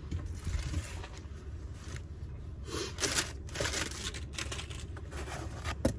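Scattered handling noises, light rustling, scraping and small clicks, from fiddling with a hydraulic bottle jack and its handle bar. A sharp click comes just before the end.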